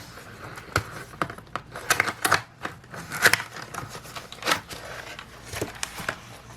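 Packaging of a replacement laptop battery being handled and opened: irregular clicks, scrapes and short rustles.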